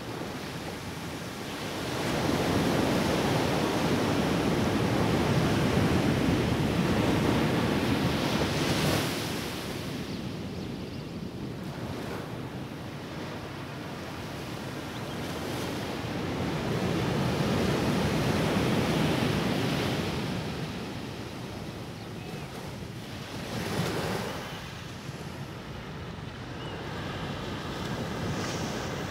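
Small waves breaking and washing up a sandy beach, the surf swelling louder twice for several seconds and easing off between, with wind buffeting the microphone.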